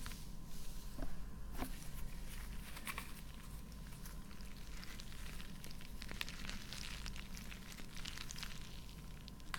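Mesh stress ball filled with gel beads squeezed and worked close to the microphone: soft, irregular crackly squishing.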